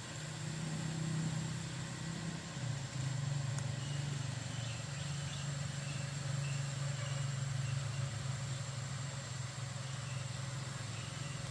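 A steady low engine-like drone that drops slightly in pitch a few seconds in, with faint high chirps in the background.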